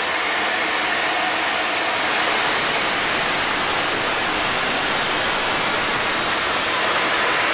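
Steady loud hiss of steam blowing from the open cylinder drain cocks of the LNER A4 steam locomotive 60007 Sir Nigel Gresley, with no exhaust beats heard.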